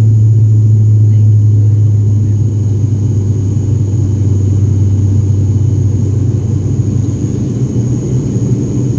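Jet airliner cabin noise during the climb after takeoff: a loud, steady engine drone with a strong low hum and a faint high whine above it.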